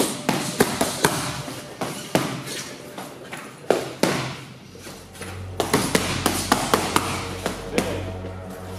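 Boxing gloves striking focus mitts in pad work: sharp smacks in quick combinations, with a fast flurry of about four strikes a second past the middle. A low steady hum comes in about halfway.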